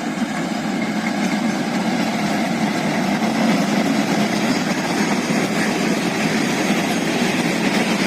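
Steady rumble and hiss of an MEMU electric train running, even in level throughout.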